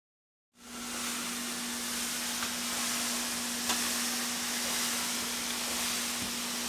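Steady hiss of room background noise with a constant low hum underneath, cutting in about half a second in after dead silence, with a couple of faint ticks.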